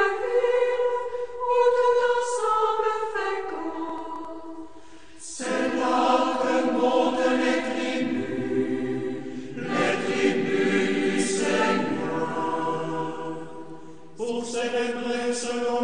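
A choir singing a slow sacred chant in sustained phrases. A new phrase begins about a third of the way in, and another near the end.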